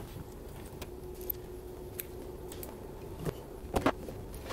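Small clicks, clinks and knocks of metal and plastic parts as a fuel pump hanger assembly is handled and fitted together on a wooden workbench, with a few sharper taps near the end, over a faint steady hum.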